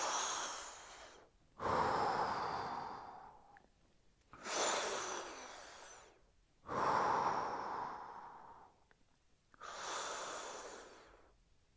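A man's deep, audible breaths while he holds a stretch, one about every two to two and a half seconds, five in all. Each starts sharply and fades away.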